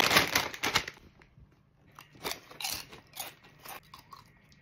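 A foil chip bag crinkling loudly in the hands for about a second. From about two seconds in, a few separate crunches as a Sun Chips-style wavy multigrain chip is bitten and chewed.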